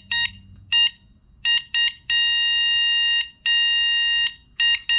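NAKTO Santa Monica e-bike's electric horn being pressed: a high, steady electronic beep, first in short taps, then two long blasts of about a second each in the middle, then short taps again near the end.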